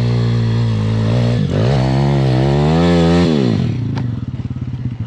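Dirt bike engine running at steady mid revs, then revved up with the pitch wavering for about two seconds. It then drops back to a low idle near the end, with a sharp click about four seconds in.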